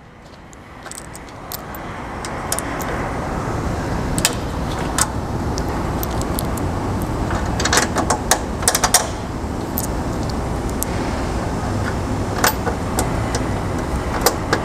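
Small metal clicks and taps at irregular intervals, with a cluster around the middle, as a door stiffener is fitted to a UTV door and its bolts are handled, over a steady low background noise that fades in over the first couple of seconds.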